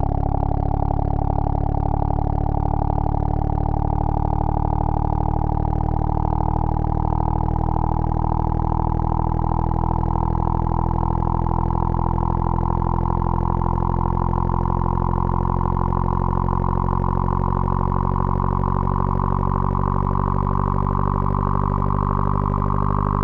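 Electronic hearing-test tone: a steady, buzzy drone rich in overtones, its pitch gliding slowly upward.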